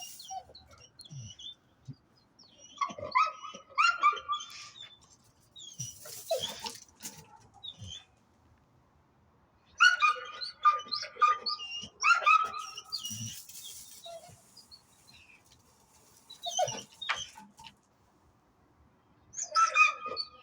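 A dog whining and whimpering in several bouts of short, high-pitched cries with quiet gaps between, eager to go after a strange animal it has spotted.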